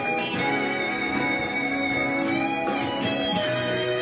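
Electric guitar playing a slow melody of long, held notes, one of them bending slightly in pitch.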